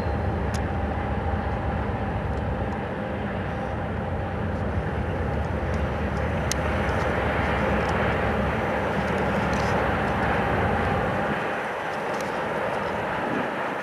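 Steady drone of a moving vehicle heard from inside, with engine hum and rolling noise. The low rumble drops away about 11 to 12 seconds in.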